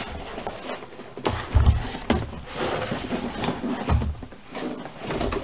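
A large cardboard box holding a die-cutting machine is handled and moved about, with several dull thumps and scraping, rustling cardboard.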